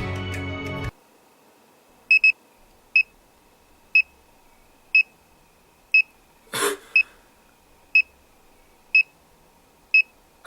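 Background music cuts off about a second in, then short high electronic beeps sound once a second, the first one doubled. A short noisy burst falls about halfway through.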